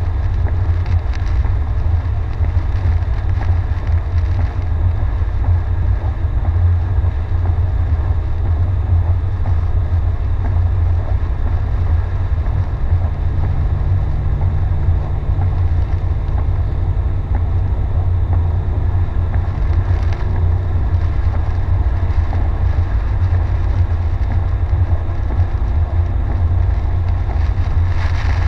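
Steady low rumble of a car driving on a rain-soaked road, heard from inside the cabin, with an even hiss of tyres on wet pavement and rain over it.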